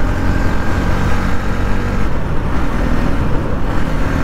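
Motorcycle engine running steadily at cruising speed, with heavy wind rumble over the microphone.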